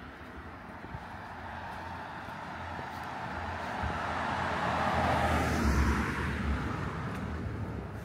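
A car passing on the road: its tyre and engine noise builds, is loudest a little past the middle, then fades away.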